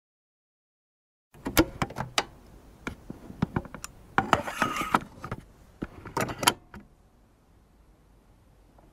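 A run of sharp clicks and knocks, with a short hiss about halfway through; they fade out over the last two seconds.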